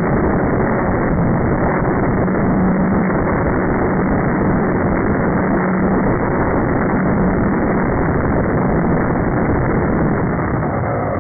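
Steady rushing noise, typical of wind on an outdoor microphone, with a faint steady hum from the Slow Stick model airplane's electric motor in flight during the first half.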